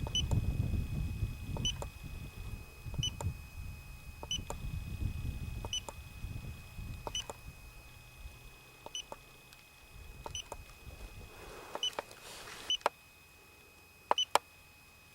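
Short electronic button beeps from a Bushnell Mini Trophy trail camera as its stored clips are scrolled through, roughly one every second and a half, with quick pairs near the end. A faint steady high whine sits under them, and there is a low rumble in the first half.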